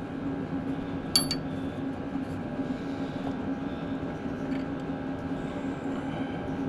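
A steady low mechanical hum, with one sharp metallic clink about a second in, as of metal parts or tools touching during work on a tractor starter's mounting bolt.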